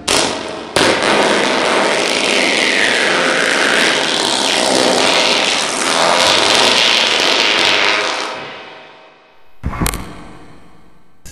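A long, loud, hissing cartoon fart sound effect with a wavering pitch, trailing away after about eight seconds, followed by a brief sharp burst near the end.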